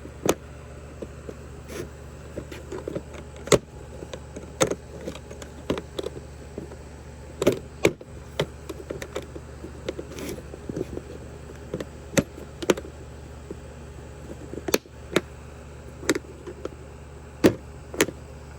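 A small toolbox and the chainsaw tools in it being handled: irregular sharp clicks and knocks, some lighter rattles between them, over a steady low hum.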